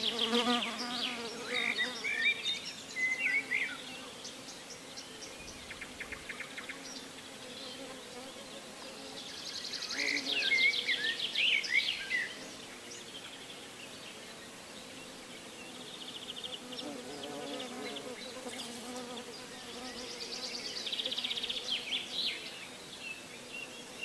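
A flying insect buzzing with a steady low hum, while birds trill and chirp in three short bursts, near the start, midway and near the end.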